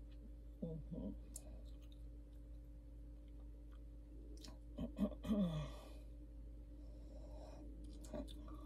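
Quiet room with a steady low hum; about five seconds in a person sighs, a short breathy sound falling in pitch, with a few faint clicks and soft mouth sounds around it.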